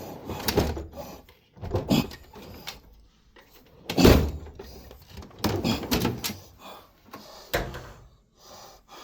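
Metal tool-chest drawers being slid open and shut, a string of clunks and scrapes, the loudest about four seconds in.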